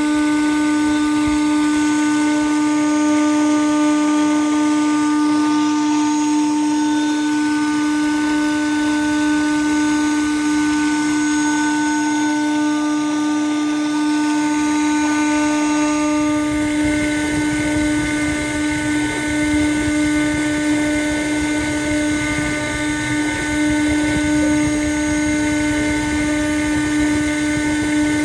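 CNC router spindle running with a steady high whine while a tiny bit carves inlay pockets into a guitar fretboard. A bit past halfway a rougher, lower cutting noise joins the whine.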